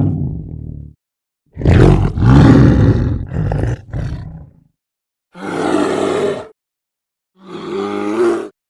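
A large animal's loud, deep calls, four in a row with pauses between them: the first trails off about a second in, the second is longer and broken into several parts, and the last two are shorter and more even in pitch.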